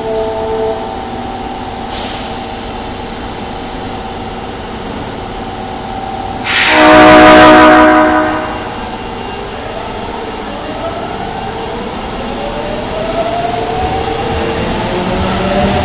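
Osaka subway 22 series electric train sounding its horn once for nearly two seconds; the horn has an unusual, off-sounding tone. Afterwards the traction motors start whining and climb steadily in pitch as the train pulls away.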